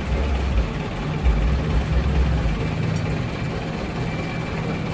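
Diesel truck engine running at low speed as the truck creeps forward. A deep rumble settles into a steadier hum after about two and a half seconds.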